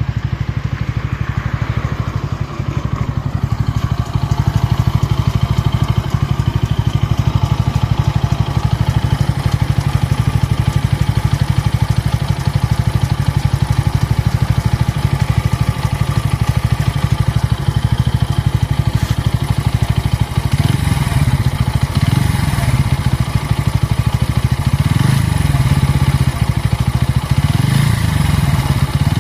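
Bajaj Pulsar N160's single-cylinder engine idling steadily, then revved briefly several times in the second half. It carries an added mechanical noise that the owner says appeared after the first service at 500 km, when the engine lost its smoothness; he does not know the cause.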